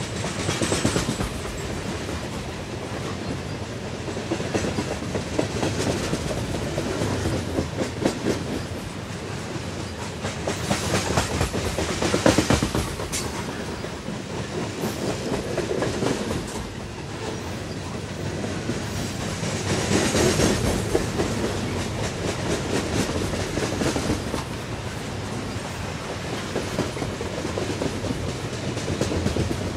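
A loaded freight train of steel coal hopper cars rolling past close by, with a steady rumble and the quick clicking and clattering of steel wheels on the rails. It swells louder a few times as cars go by.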